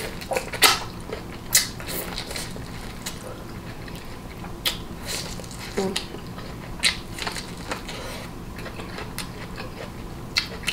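Close-miked eating sounds: chewing and biting, with scattered sharp clicks and crunches at irregular intervals over a steady low hum.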